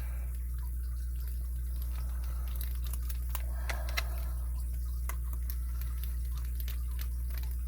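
Scattered light metallic clicks and taps as a padlock is handled and worked with a screwdriver, over a steady low hum.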